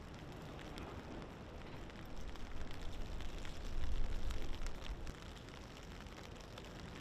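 Outdoor waterside ambience: a steady hiss with wind rumbling on the microphone, swelling in a gust from about two to five seconds in.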